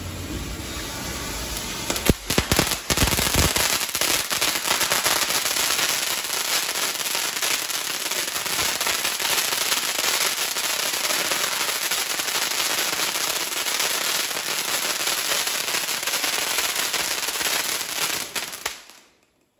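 Sony Fireworks crackling fountain firework spraying sparks with loud, continuous crackling. A few sharp pops come about two seconds in, then a dense run of rapid tiny bursts, which cuts off abruptly near the end as the fountain burns out.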